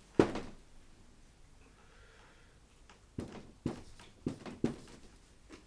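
Marker writing on a whiteboard: one sharp tap about a quarter second in, a quiet stretch, then a quick run of four or five short taps and strokes in the last two and a half seconds.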